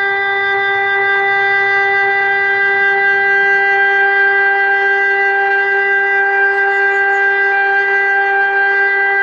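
ELMIK NERO 600 electronic siren sounding one loud, steady tone that neither rises nor falls: the continuous tone of the Czech siren test signal.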